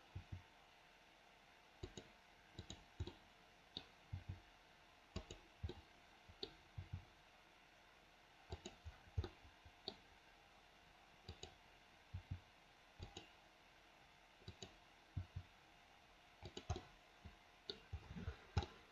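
Faint computer mouse clicks and keyboard key presses, short sharp clicks at irregular intervals, often in quick pairs or small groups, over faint hiss.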